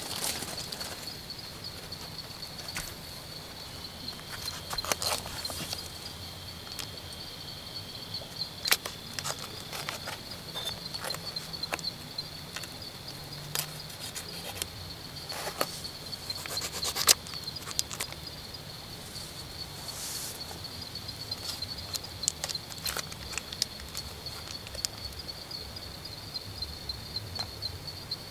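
A steady, rapidly pulsing high insect trill, with scattered sharp clicks and knocks, the loudest about 9 and 17 seconds in.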